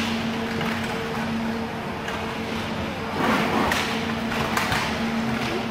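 Inline roller hockey play: a flurry of sharp stick and puck clacks a little past halfway as players battle for the puck after a faceoff, over a steady low hum in the rink.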